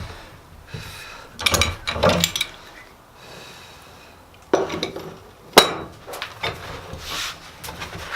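Metal clinking and knocking: a few irregular strikes, some with a short metallic ring, the loudest about five and a half seconds in.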